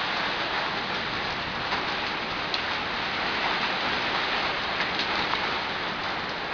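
Small hailstones and rain falling steadily: a dense, even hiss with a few scattered sharp ticks of stones striking.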